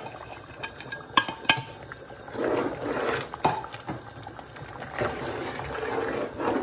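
A metal spoon pushing spices and chopped green chilies off a plate into a pot of hot broth, clinking twice about a second in, then stirring and splashing through the liquid in the metal pot.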